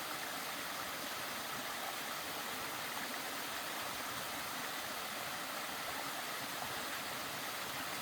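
Steady, even rush of running water, as from a mountain stream or waterfall.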